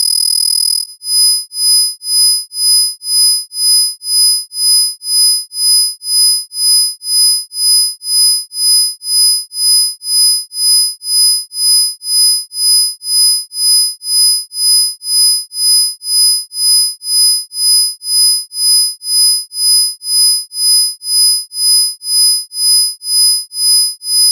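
Electronically generated pure sine tones, the loudest high-pitched at about 5,000 and 10,000 Hz, with fainter tones beneath them. They hold steady for the first second, then pulse on and off evenly about twice a second: a 2 Hz isochronic tone.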